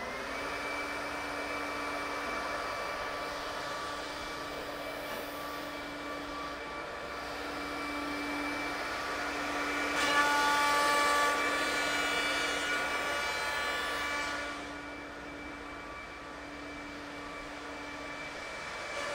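Spindle motors of a multi-spindle CNC oval mortising machine running with a steady whine. About ten seconds in, the sound grows louder and fuller for roughly four seconds as the bits cut oval mortises into the pine bars, then it drops back to the steady whine.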